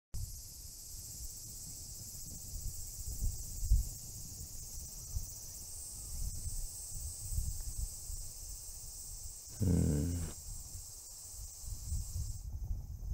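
Steady high-pitched insect chorus over a fluctuating low rumble, typical of wind on the microphone outdoors. A short, low pitched sound, like a brief voice, comes about ten seconds in, and the insect sound drops away just before the end.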